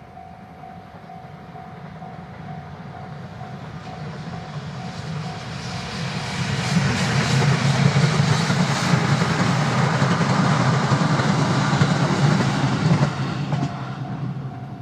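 An ED75 electric locomotive hauling a four-car 205-series train passes close by. It builds to a loud, steady rumble with wheels clicking over rail joints, then begins to fade near the end. A level-crossing warning bell rings with a steady pulsing tone, plain at the start and end and drowned out while the train is loudest.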